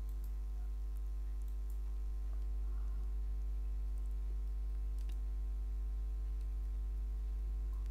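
A few faint computer keyboard clicks as text is typed, over a steady low electrical hum.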